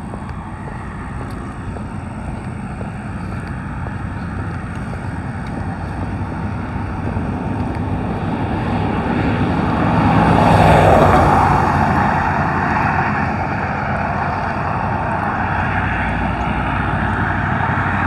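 Road traffic noise that builds slowly and swells to a peak as a vehicle passes about ten seconds in, then eases.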